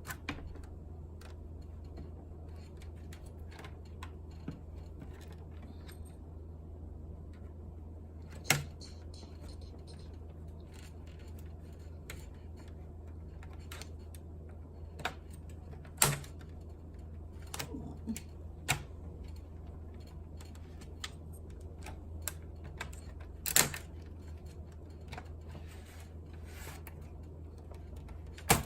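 Scattered small plastic clicks and snaps of a laptop's case being pried open, with four louder sharp snaps spread through, over a steady low hum.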